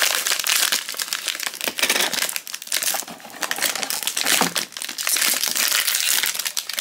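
Silver foil blind-box bag crinkling as hands tear it open and squeeze it, a dense run of irregular crackles.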